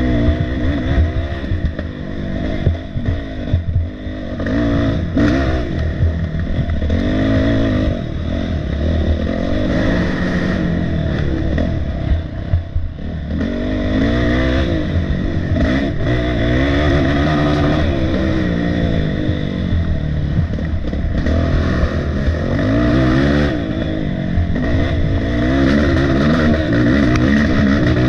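Race ATV (quad) engine revving up and down continually as it is ridden hard through tight wooded trail, pitch rising and falling with every burst of throttle, with clattering knocks from the machine over rough ground.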